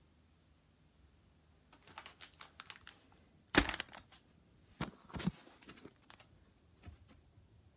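Clear plastic candy packaging crinkling and rustling as it is handled, in a series of short crackly bursts, the loudest about three and a half seconds in.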